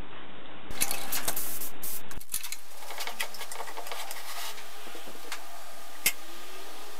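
A dish-washing sponge loaded with paint being rubbed over a wooden board, a scratchy rubbing with many small clicks, in short pieces that change abruptly twice near the start, and a single sharp click near the end.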